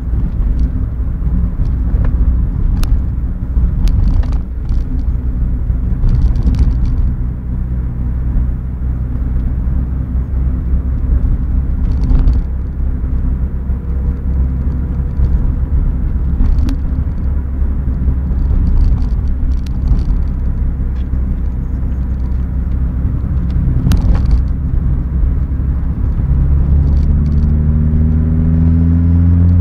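Renault Clio RS172's 2.0-litre four-cylinder engine and road noise heard inside the cabin while cruising, with scattered short knocks. Near the end the engine note rises steadily as the car accelerates.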